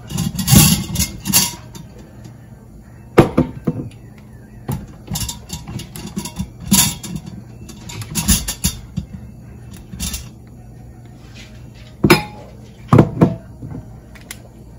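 Metal jar tongs and glass pint jars clinking and knocking against the Instant Pot's stainless steel inner pot as hot canning jars are lifted out and set down, a series of separate sharp clinks.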